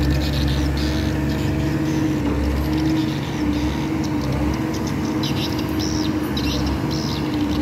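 Diesel engine of a Lonking mini excavator running steadily as the machine works, a low rumble with a steady hum.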